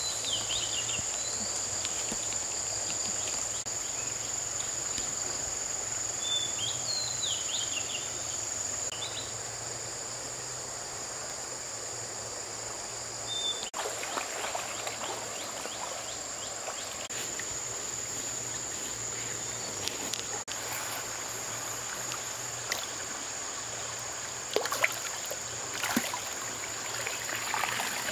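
Insects droning steadily at a high pitch over running river water, with a few short bird chirps in the first seconds. Near the end, several sharp splashes as a large fish thrashes in a shallow channel.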